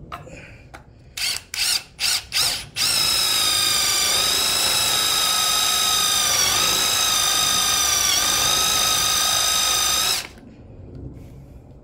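Power drill with a 5/8-inch bit boring a hole in a piece of wood: four quick blips of the trigger, then a steady motor whine for about seven seconds that dips in pitch twice as the bit loads up, stopping suddenly near the end.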